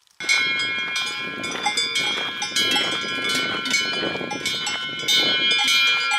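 Several cowbells on grazing cattle in an alpine pasture, ringing and clanking irregularly as the cows move, with a few steady overlapping bell tones; it starts abruptly just after the beginning.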